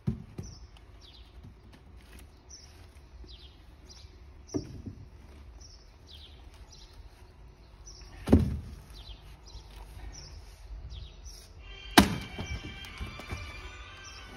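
Axe blows into a section of palm trunk: four heavy thuds a few seconds apart, the deepest about eight seconds in and a sharp crack about twelve seconds in. A bird chirps over and over in the background.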